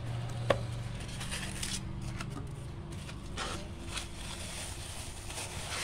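Cardboard box flaps and styrofoam packing being handled while a box is unpacked: scattered rustling and scraping, with one sharp click about half a second in.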